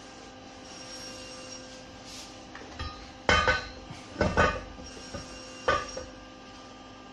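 Metal clanks and knocks as a crankshaft is handled in the bare cast engine block of a Hyundai Atos engine: a few sharp knocks with a short ring, the loudest a little past three seconds and around four seconds in, over a steady faint hum.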